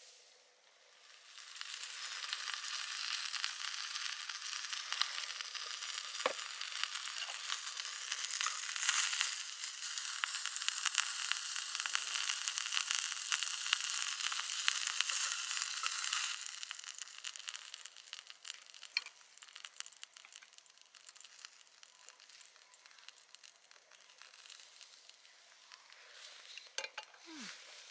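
Jingisukan mutton sizzling and crackling in a hot pan. It is loud for the first sixteen seconds or so, then dies down to quieter scattered crackles.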